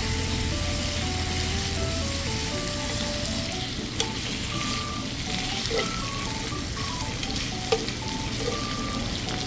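Thinly sliced frozen pork belly sizzling steadily on a hot griddle, with two sharp clicks of metal tongs against the plate as the slices are turned. A light background melody plays underneath.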